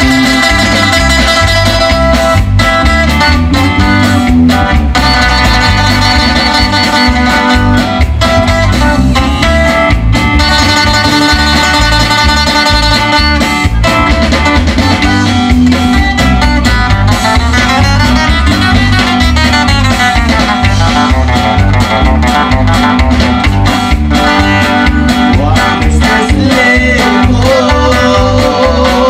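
Live band music: a guitar melody over bass and a steady pulsing beat, playing without a break.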